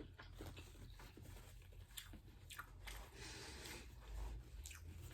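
A person chewing a mouthful of seafood boil close to the microphone: faint wet mouth smacks and a few scattered clicks.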